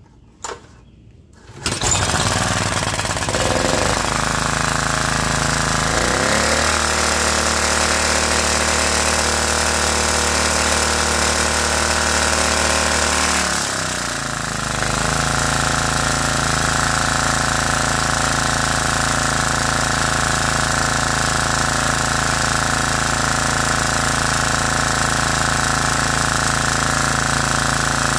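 Briggs & Stratton engine on a 1996 portable generator catching about two seconds in after a choked cold start, then running really, really loud through its worn-out exhaust. Its pitch shifts about six seconds in and again around fourteen seconds, then it settles into a steady run.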